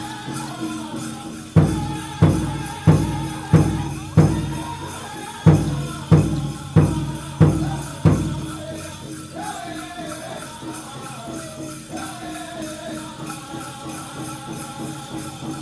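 Powwow drum group singing over a large shared drum. About a second and a half in comes a run of about ten loud, accented drum beats, roughly one and a half a second, with a short gap in the middle. After that the drumming softens and the singing carries on.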